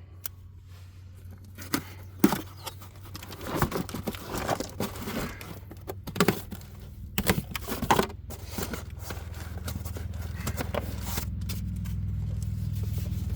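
Cardboard box and packaging being opened and handled: irregular tearing, crinkling and light knocks. A low steady hum comes in underneath and grows louder over the second half.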